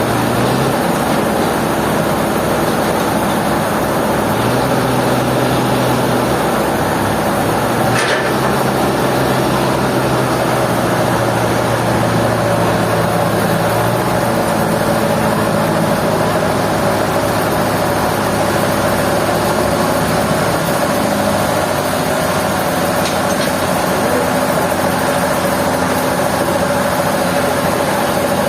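Heavy sawmill machinery running steadily, its low engine tones stepping up and down in pitch now and then, with one sharp knock about eight seconds in.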